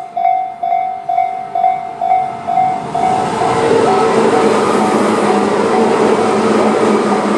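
Japanese level crossing's electronic warning bell (Tobu "sound C") ringing at about two strikes a second. About three seconds in, a Tobu 10000 series electric train passes through the crossing and its running noise covers the bell, which keeps ringing faintly underneath.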